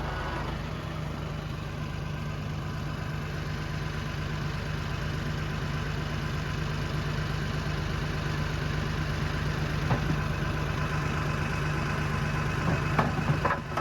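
Tractor engine running steadily at an even speed, with a few light knocks near the end.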